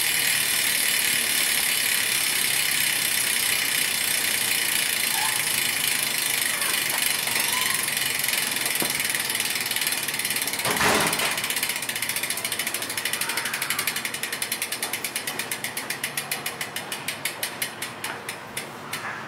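Freehub ratchet of a Fulcrum Racing Speed XLR rear wheel clicking as the wheel freewheels. The pawl clicks run together into a fast buzz, then slow into separate, more widely spaced clicks toward the end as the wheel spins down, with a single thump about halfway through.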